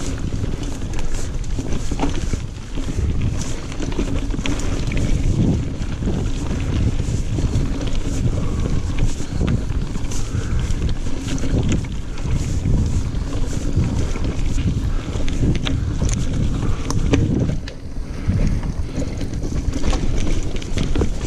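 Wind rushing over an action camera's microphone as a Specialized Crave SL single-speed mountain bike rides fast down dirt singletrack. The knobby tyres rumble over the ground, with frequent small clicks and rattles from the bike as it runs over roots and rocks.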